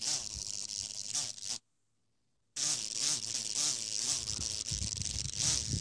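A trapped horsefly buzzing in pulses, its head stuck in a crack in a metal trailer edge. The buzzing cuts out for about a second, then resumes.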